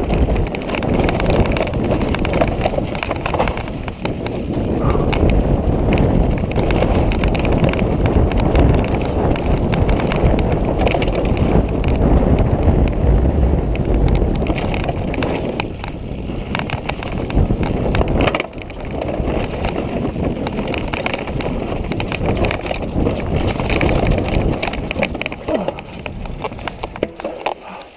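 Orbea downhill mountain bike rattling and rumbling down rocky, leaf-strewn singletrack: tyres crunching over dirt and rock, with a constant clatter of small knocks from the bike. The rumble eases briefly twice in the second half.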